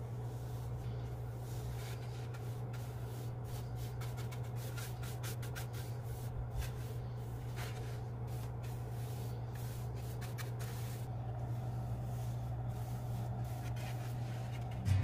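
Bristle brush swishing and scratching over the surface of a turned root-burl vase in repeated short strokes as finish is brushed on, over a steady low hum.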